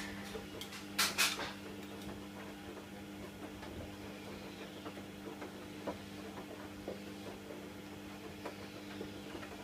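KDK 15WUE 07 kitchen window exhaust fan running with a steady hum. A sharp double clatter about a second in, then a few faint ticks.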